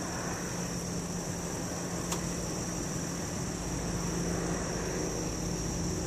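A large mass of honeybees humming in a steady low drone while being shaken into a hive box, with night crickets chirping steadily and high above it.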